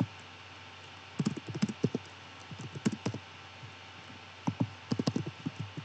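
Typing on a computer keyboard in three short flurries of keystrokes with brief pauses between them.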